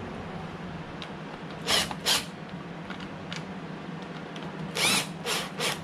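Lawnmower engine parts being worked into place by hand, making short creaking scrapes: two close together about two seconds in, then a quick run of four near the end.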